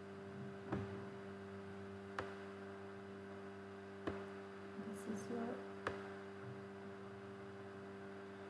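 Steady low electrical hum on the recording, broken by four sharp clicks spaced about two seconds apart, with a few faint small noises in between.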